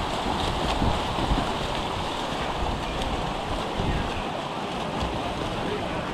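Steady rushing wash of pool water with gusty wind rumbling on the microphone.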